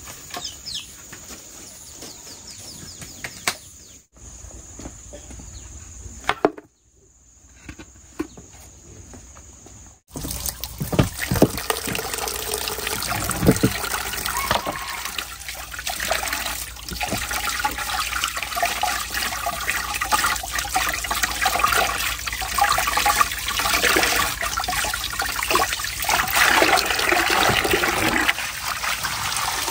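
Water running from a plastic tap into a wooden basin: a steady, splashing stream that starts about a third of the way in and stays loud, as hands rinse a piece of meat in it. Before it starts there is only quieter background sound.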